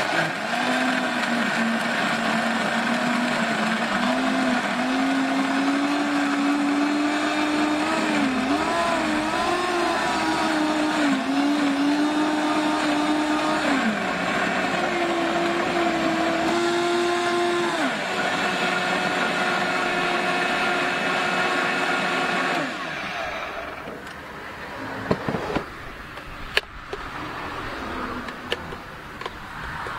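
Countertop blender motor running hard, crushing ice with strawberry mix into a slushie. Its whine wavers and steps in pitch as the load changes, then stops abruptly about three quarters of the way through, followed by a few light knocks.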